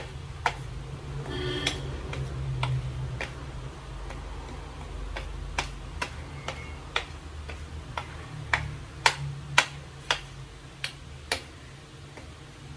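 Steel spoon clicking and scraping against a ceramic plate while stirring a dry spice and flour mix. The taps are short and sharp, uneven, about one or two a second, over a low steady hum.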